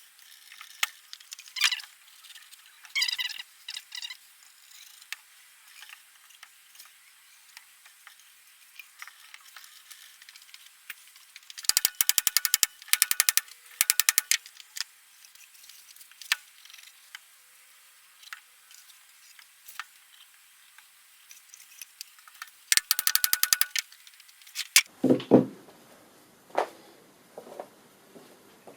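A power driver sinking screws into timber. It runs in two bursts of rapid, evenly spaced clicking, a longer one of about two and a half seconds and a shorter one of about a second, with scattered knocks and clatter from handling the wood between them.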